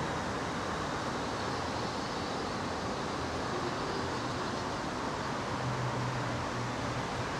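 Avonside 0-6-0 saddle-tank steam locomotive No 34 approaching slowly, heard as a steady rushing hiss with a faint low hum and no distinct exhaust beat.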